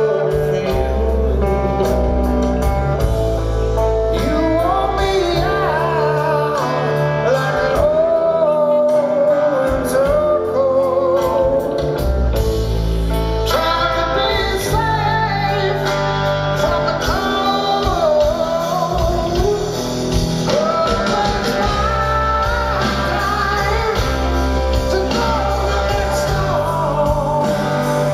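A rock band playing live: a man sings a melody with long held notes over electric guitars, bass and drums.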